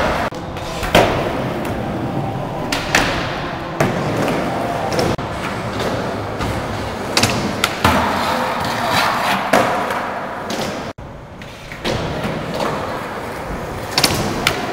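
Skateboard wheels rolling over a smooth skatepark floor, broken by several sharp clacks and thuds as the board pops, lands and strikes ledges. About eight seconds in, a longer scraping stretch comes as the board slides along a ledge.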